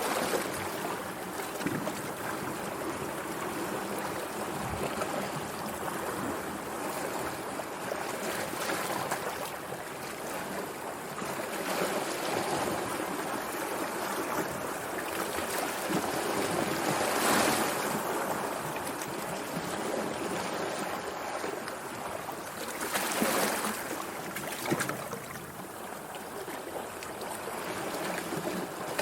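Sea waves washing ashore in a continuous rushing wash that swells and eases, with two louder surges of breaking surf, one about halfway through and another a few seconds later.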